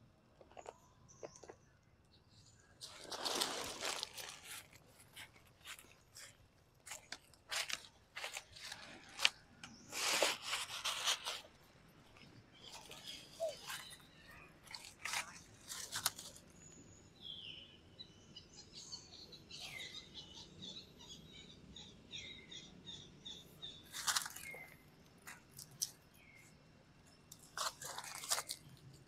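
Dry fallen leaves crackling and rustling in short bursts every few seconds as they are stepped on and shuffled. In the second half a bird chirps repeatedly in the background.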